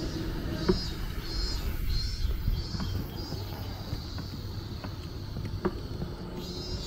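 Hand-pulled rickshaw rolling along an asphalt road: a steady low rumble from its wheels, with a few light clicks and knocks from the cart. A faint high chirping repeats about twice a second in the first half.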